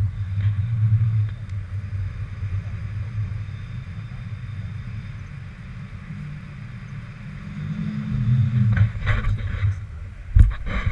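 Wind buffeting a handheld camera's microphone during tandem paraglider flight: a steady low rumble with hiss. Several knocks come near the end, the loudest just before it ends.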